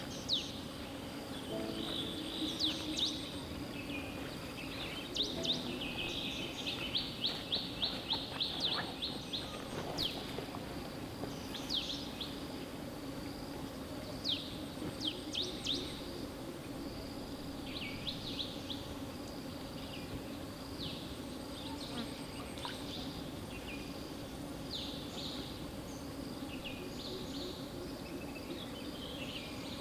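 Songbirds chirping and calling with quick falling whistles and a rapid trill of repeated notes a few seconds in, over a steady low hum and faint high insect ticking.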